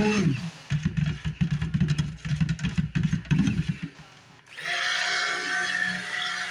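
Immersion stick blender running in short pulses, mixing lye water into soap oils. Background music comes in after about four and a half seconds.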